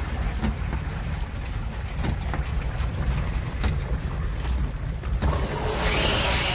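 Wind buffeting the microphone: a steady, heavy low rumble. Near the end a louder hiss rises for about two seconds.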